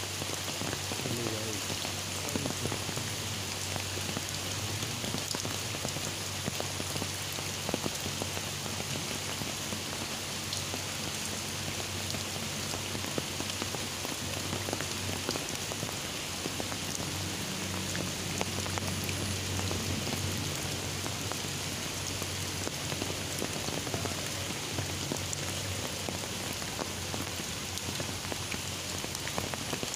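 Heavy, steady rain pouring onto a flooded field, with drops striking the umbrella fabric just overhead as a dense scatter of small ticks.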